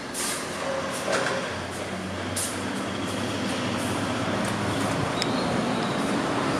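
Road traffic from a busy city street below an upper-floor balcony: a steady wash of passing cars and trucks that grows louder as the balcony door opens. A few sharp clicks and knocks from the door and footsteps come in the first couple of seconds.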